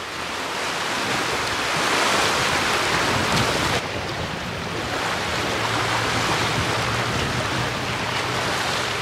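Loud, steady rushing of water at a lake shore, mixed with wind on the microphone. It swells for a couple of seconds, drops suddenly about four seconds in, then carries on evenly.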